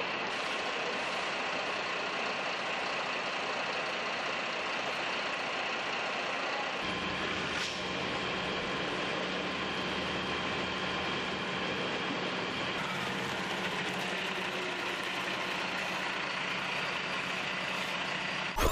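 Heavy engine running steadily with a constant hum, growing fuller and deeper about seven seconds in.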